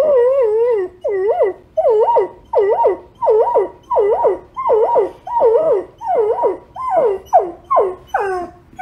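A dog howling: one long wavering howl, then a quick run of about ten short howls, each dipping and rising in pitch.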